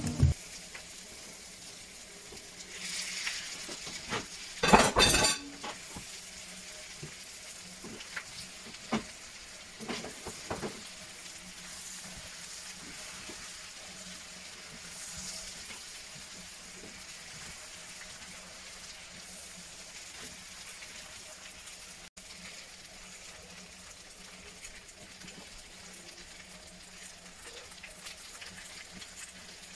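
Beef strips and bell peppers frying with a steady low sizzle in a nonstick pan, stirred with a spatula. A brief loud clatter about five seconds in, and a few sharp clicks of the spatula against the pan a little later.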